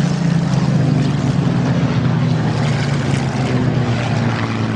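Supermarine Spitfire's V12 piston engine droning steadily as the fighter flies past low, its pitch falling slowly as it goes by.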